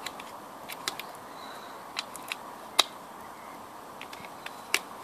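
D-cell batteries being pressed one by one into a sprayer's plastic battery tray: a handful of sharp separate clicks, the loudest nearly three seconds in, over a steady background hiss.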